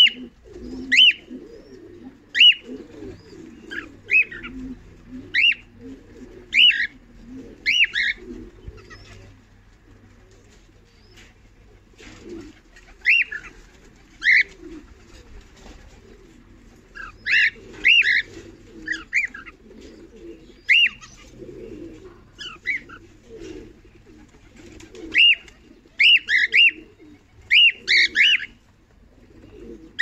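Cockatiels calling: short, sharp chirps that sweep up and fall away, about one a second, pausing for a few seconds about a third of the way in and coming in quicker clusters near the end. A lower, softer wavering bird sound runs underneath.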